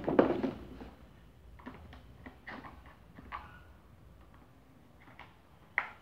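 Plastic parts of an Arno table fan knocking and clicking as they are handled and fitted together: a loud clatter at the very start, then scattered light clicks and taps.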